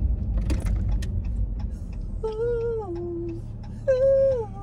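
A person humming two short phrases inside a car, each falling in two steps. Before the humming there is a low rumble in the car cabin for the first couple of seconds.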